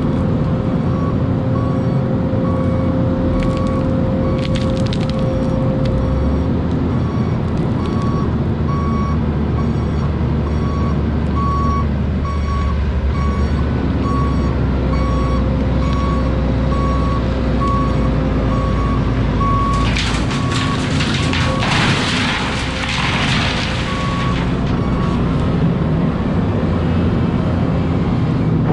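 Hidromek excavator working: its diesel engine and hydraulics running steadily under load, with a machine warning alarm beeping over and over. About twenty seconds in there are a few seconds of loud rushing noise.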